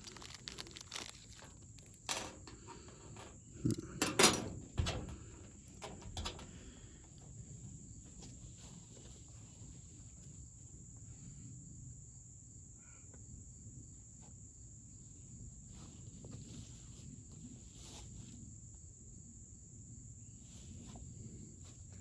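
Small lock-kit parts being handled: a few sharp clicks and knocks in the first several seconds, the loudest about four seconds in. Then mostly quiet, with crickets chirring steadily at a high pitch throughout.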